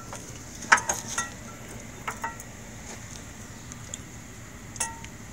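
Metal brake pads and their clips clinking against the caliper bracket as they are slid into place: a few sharp, short, ringing clinks, several about a second in, one about two seconds in and one near the end.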